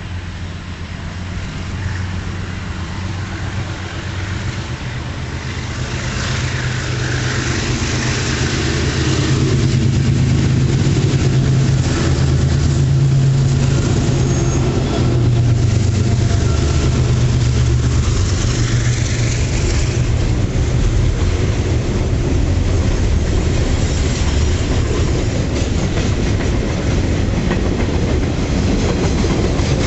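Diesel locomotive hauling a freight train, its engine drone growing louder over the first ten seconds and then holding steady. The wagons' wheels clatter over rail joints as the train goes by.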